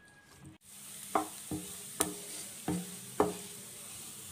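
Chopped ginger and green chilies sizzling in oil in a nonstick kadai while a wooden spatula stirs them, knocking against the pan five times, each knock with a short ring. The sizzling comes in about half a second in.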